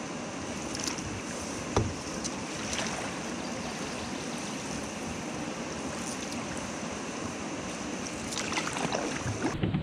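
Steady wash of water and wind as a canoe moves on a lake, with one sharp knock about two seconds in and a few lighter knocks and scrapes near the end.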